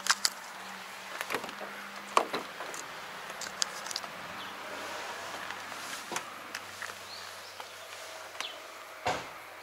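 Footsteps and scattered handling clicks and knocks as someone walks on a dirt yard, with a sharp click right at the start, another about two seconds in and a dull thump near the end. A faint steady low hum sits underneath.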